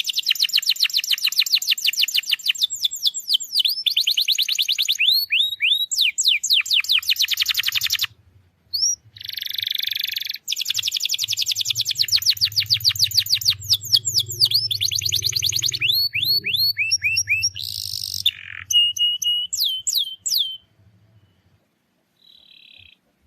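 Domestic canary singing a long song of rapid trills (rolls) and quick rising sweeps, with a short break about eight seconds in and the song stopping near the end.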